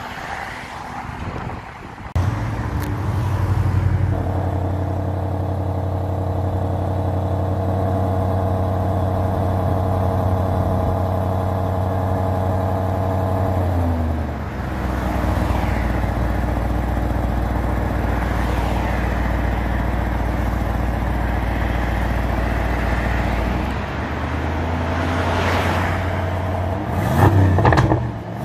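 Aston Martin DBX's twin-turbo V8 starting about two seconds in, flaring up and settling into a steady fast idle heard at the exhaust tailpipe. Around halfway through the idle drops to a lower, deeper note. Near the end there are a few sharp revs.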